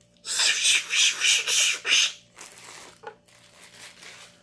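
Hands rubbing briskly together, about three strokes a second, for a couple of seconds. Then come a few softer rubs and a single click.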